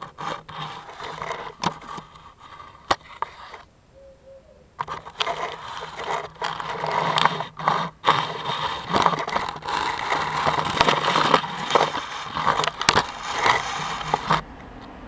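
Scraping, rubbing and sharp knocks as the camera is moved along with a stick, with a short pause about four seconds in.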